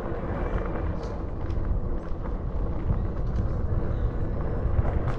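Riding noise from a fat tire bike on a trail: a steady low rumble of tyres rolling over the ground, with scattered small clicks and rattles.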